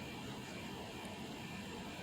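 Steady outdoor background noise, strongest in the low range, with no distinct claps or events.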